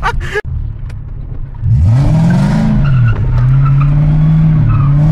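Toyota Mark II engine heard from inside the cabin, jumping from a low drone to hard revving about two seconds in. Its pitch climbs steeply, dips, then holds at a steady high run. A brief tyre squeal comes with the first rev as the car slides through a bend.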